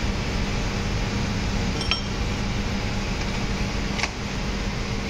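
A small metal mesh sieve clinking lightly twice, about two seconds in and again near four seconds, as it is tapped to dust flour. Underneath is a steady background hum.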